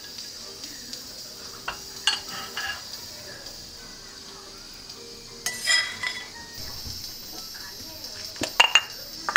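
Ceramic bowl and kitchen utensils clinking and knocking as noodles and jajang sauce are served into the bowl: a few scattered clinks, a short cluster midway, and the loudest clinks near the end.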